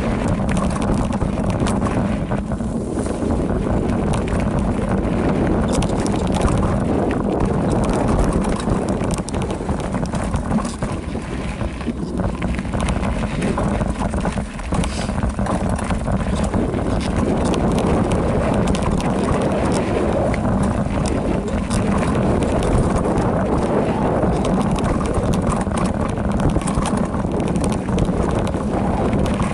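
Specialized Rockhopper Comp mountain bike riding fast down a rocky dirt trail: wind noise on the microphone with tyres running over dirt and stones, and many small clicks and knocks as the bike clatters over the rough ground.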